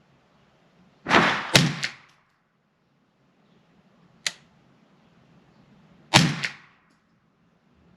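.22 rimfire rifle shots from a Ruger 10/22: sharp cracks at irregular intervals, a cluster of three about a second in, one near the middle and a pair near the end.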